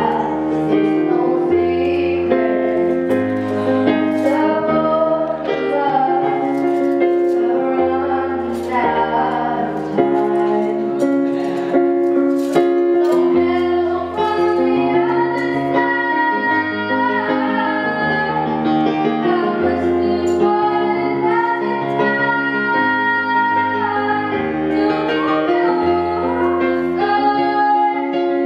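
A female vocalist singing a slow ballad into a microphone, accompanied by digital piano chords over a bass line that changes every couple of seconds.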